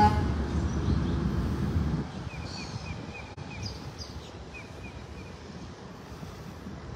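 Wind rumbling on the microphone for the first two seconds, then small birds chirping: a quick run of short chirps a couple of seconds in, with a few higher calls among them.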